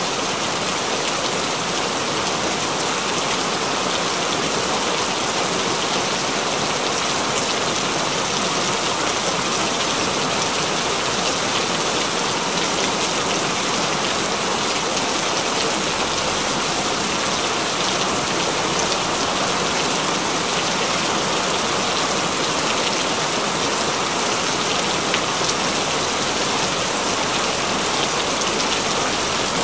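Continuous rain falling steadily, an even hiss of drops that does not let up.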